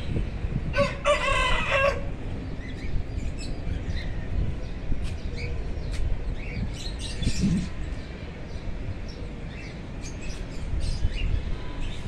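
A rooster crowing once, about a second long, near the start, followed by scattered short bird chirps over a steady low rumble.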